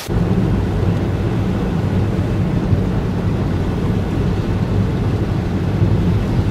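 A loud, steady low rumble that begins abruptly, with little in the upper range.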